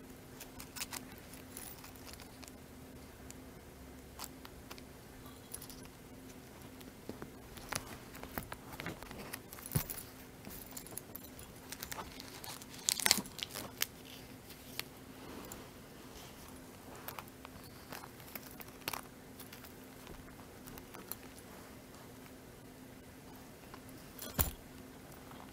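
A small Coach zip wallet being handled: its gold metal key ring and zipper hardware clink and jingle in scattered light clicks, with soft rustling, the sharpest clinks a little past halfway and near the end.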